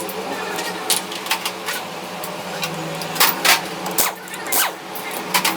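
Metal tools and engine parts clinking and knocking, a dozen or so sharp irregular hits, during the stripping of a Honda CG125 engine, over a steady low mechanical hum.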